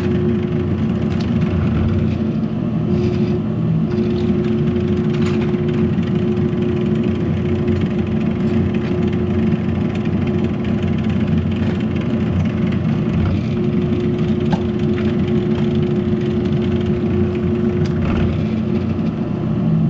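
Steady machine hum with a constant pitch, with a few light clicks and knocks of handling on top.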